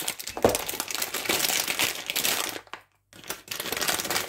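Plastic bag crinkling as it is handled. It stops briefly a little under three seconds in, then starts again.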